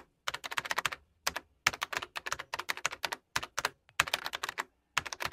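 Computer keyboard typing: rapid key clicks in short bursts with brief pauses between.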